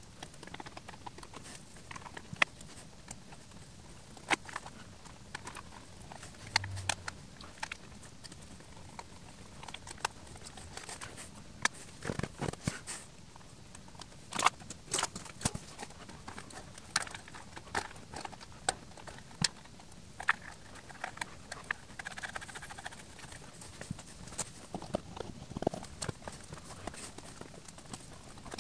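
Irregular light clicks, taps and knocks of plastic pedestal-fan parts being handled and fitted together by hand during reassembly: a screwdriver setting the back screw in the motor housing, the housing and front plate going over the shaft, and the blade being handled.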